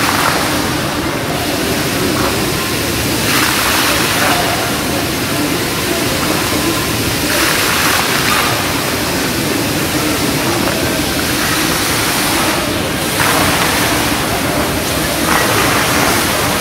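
Water falling steadily in an indoor fountain, a cascade of falling streams, swelling louder every few seconds, with a murmur of voices underneath.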